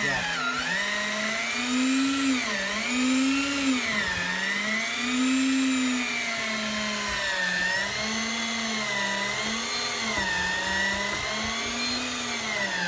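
Electric fishing reel motor winding in line under load, its whine rising and falling in pitch every second or two as the pull of the heavy fish on the line changes.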